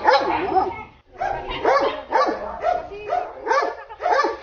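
Doberman barking in a quick run of short calls that rise and fall in pitch, two or three a second.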